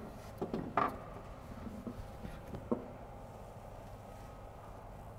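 Light metallic knocks of a front sway bar bumping against suspension parts as it is worked out from under the car: a couple in the first second and one sharper knock a little before three seconds in, then only a faint steady hum.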